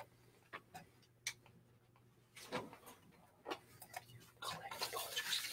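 Quiet room with a few faint, sharp clicks in the first second and a half and scattered small sounds after. Faint indistinct noise rises from about four and a half seconds in.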